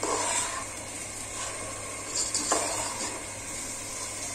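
Soaked rice sizzling as it fries in hot mustard oil in a pot, with a spoon scraping and stirring through it a few times.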